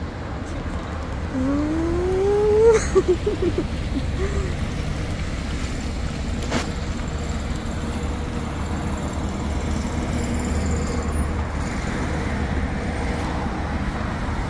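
Steady low rumble of a car's engine as a small car drives up across a parking lot and stands idling. About two seconds in there is a short rising tone, then a sharp click.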